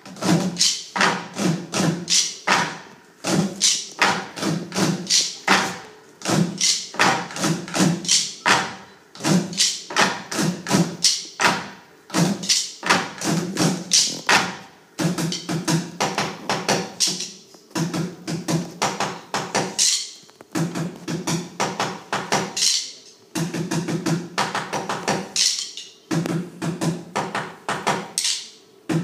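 A group of children drumming in unison on the boxes they sit on, a fast rhythm of sharp strikes in phrases of a few seconds with short breaks between them.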